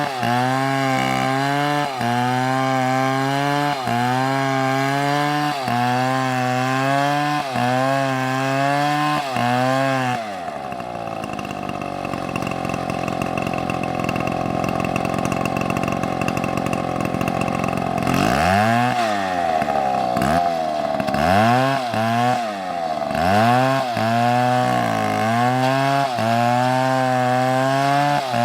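Chainsaw running under load, its engine note dipping and recovering about every second and a half. About ten seconds in it drops to a lower, steady run, then is revved up and down sharply several times before the regular dips return.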